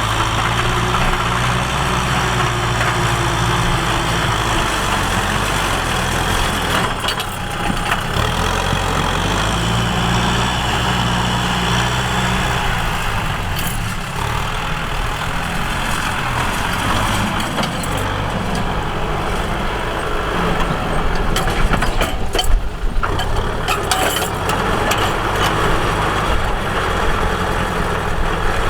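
Tractor engine running steadily under work, its pitch and load shifting a few times.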